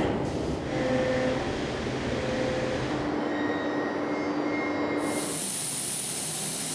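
CNC machining center running, its spindle milling a block with a steady mechanical din and faint whining tones that come and go. About five seconds in, a loud high hiss sets in and carries on to the end.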